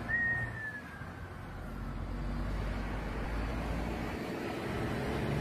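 Steady road and engine rumble of a moving car, with a short high-pitched tone right at the start that slides slowly downward.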